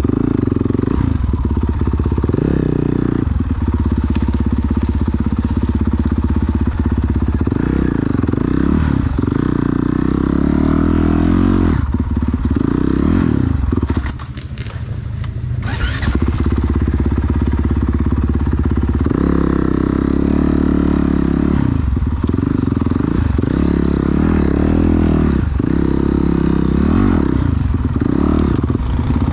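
Dirt bike engine revved hard again and again under load, the revs climbing and dropping every second or two as the bike is worked through deep mud; about halfway the throttle eases off for a couple of seconds before the revving resumes.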